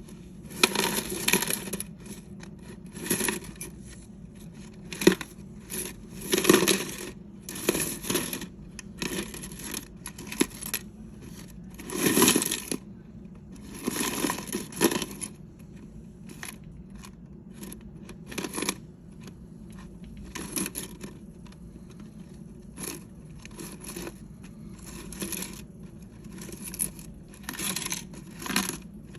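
Loose zinc shavings clinking and rustling as they are moved about, in irregular bursts from a fraction of a second to about a second and a half long, with a bright metallic jingle in them.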